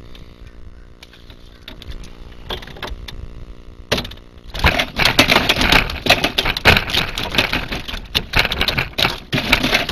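A freshly landed channel catfish thrashing, a loud, dense, irregular rattling and clattering that starts about four and a half seconds in, over a faint steady motor hum.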